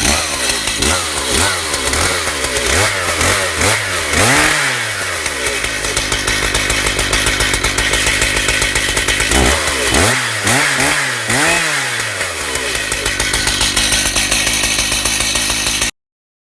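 Two-stroke chainsaw running in a chainsaw mill cutting beech. Its engine pitch rises and falls repeatedly for the first few seconds, holds steady through the middle, and swings up and down again about two-thirds of the way in. The sound cuts off abruptly near the end.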